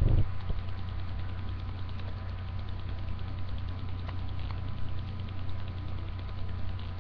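A steady low hum, with a brief louder sound right at the start and a couple of faint clicks about four seconds in.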